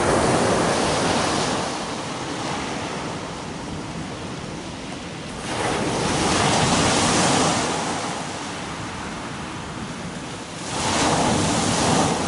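Sea surf breaking on the shore: a steady rush of water that swells louder at the start, again about 6 seconds in and again about 11 seconds in, as successive waves break.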